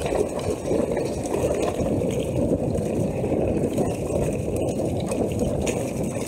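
Mountain bike running fast down a wet forest trail: a steady rough rumble of tyres and wind noise.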